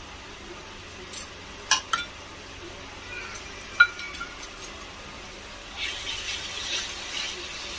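Kitchen utensils clinking: a few sharp clinks, the loudest about four seconds in with a short ringing tone, then a short scratchy noise near the end.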